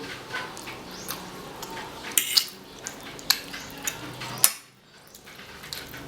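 Cutlery clinking and scraping against a plate during close-miked eating, with a few sharp clinks about two seconds in, at about three seconds and again just before the middle of the second half.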